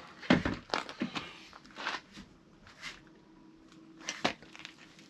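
Scattered clinks and knocks of tools and metal motorcycle wheel parts being handled, about eight short sharp strikes spread irregularly, the loudest near the start and about four seconds in.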